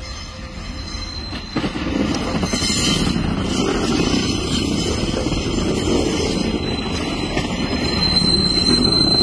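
Pacer diesel railbus train passing close by at low speed. Its underfloor diesel engines and wheels on the rails grow louder from about a second and a half in, with a high-pitched wheel squeal over the top.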